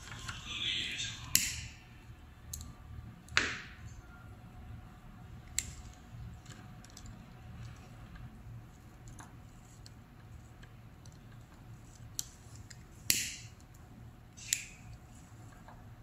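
A few separate sharp clicks and short scrapes from hands working small wires and a disposable lighter, over a low steady hum.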